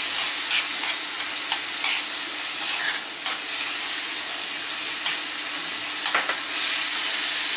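Peeled shrimp sizzling and bubbling in thick tomato sauce in a metal frying pan as it is stirred, with a few short scrapes of the spoon against the pan. The shrimp are cooking through in the sauce.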